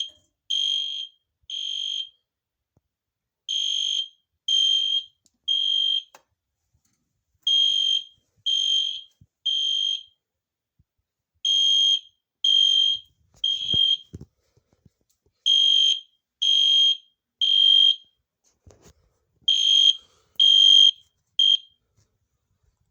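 EST Genesis LED horn strobe's horn sounding in the temporal-3 evacuation pattern: three half-second beeps, a pause, repeating about every four seconds, a high raspy tone. Its last group stops short near the end.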